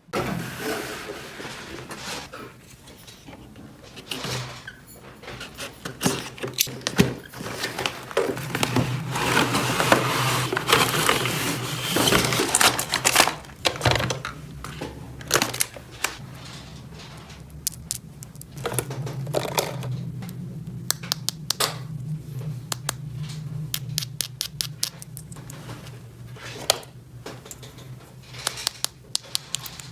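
Hands handling small objects, making a busy run of clicks and taps with some crinkling, thickest around the middle.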